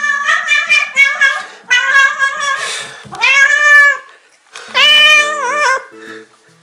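A cat meowing loudly and insistently at close range: a quick run of short meows, then two longer drawn-out meows, the last one wavering in pitch.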